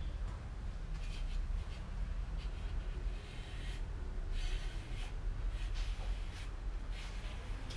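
Short, irregular scraping strokes of a small hand tool working cement on the roof edge of a miniature cement house, over a steady low rumble.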